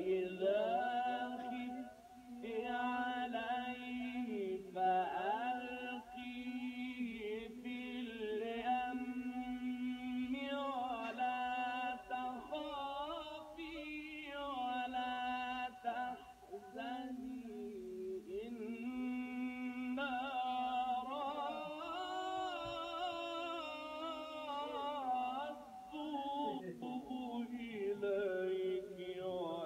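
A man singing unaccompanied in a chant-like melody, holding long notes and sliding between them.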